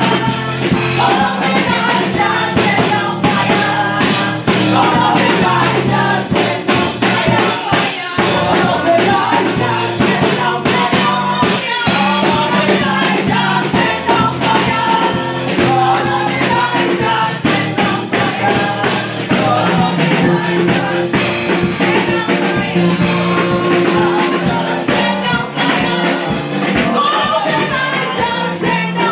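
Live gospel praise music: a group of singers on microphones over keyboard, with a steady percussion beat.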